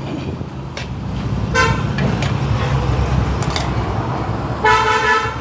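Vehicle horn from passing road traffic: a short toot about a second and a half in, then a longer steady toot near the end, over a low rumble of traffic.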